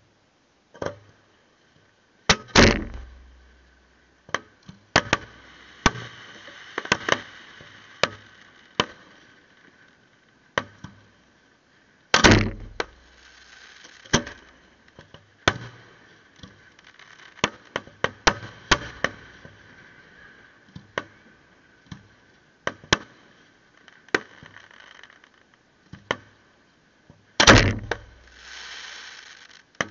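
Fireworks display: aerial shells bursting with sharp bangs every second or so. Three much heavier booms about ten seconds apart each leave a short low rumble, and a fainter hiss or crackle trails after some bursts.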